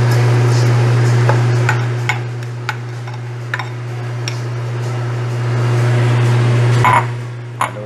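Green peas tipped from a glass bowl into a stainless steel pan of simmering stew, with a spatula and the bowl knocking against the pan in about eight short sharp clicks. A steady low hum runs underneath and is the loudest thing.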